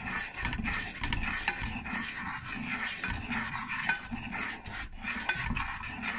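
A spoon stirring melted butter with garlic and onion granules and barbecue rub in a pan, with a steady scraping and small clinks.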